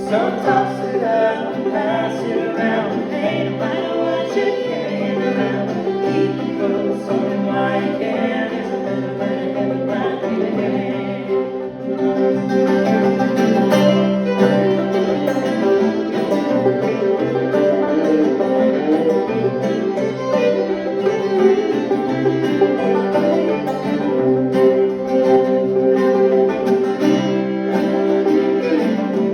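Old-time string band playing the tune, with banjo and guitar picking and fiddle; the band gets a little louder about twelve seconds in.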